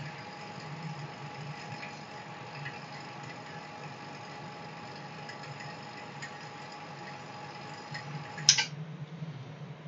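Vacuum pump running steadily, pulling a vacuum on the chamber to degas clear resin. Near the end there is a single sharp click, after which the pump's steady tone stops.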